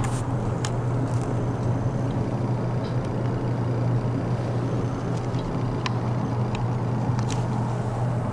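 A steady low hum over a wash of noise, even in level, with a few faint ticks scattered through it.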